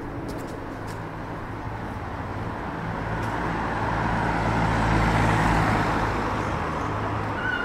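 A motor vehicle passing on the street: engine hum and road noise build to a peak about five seconds in, then fade.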